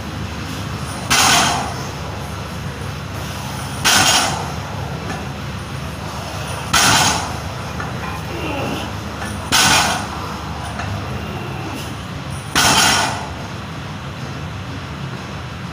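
A weightlifter breathing out hard once per deadlift rep, five sharp hissing breaths about three seconds apart, over a steady low hum.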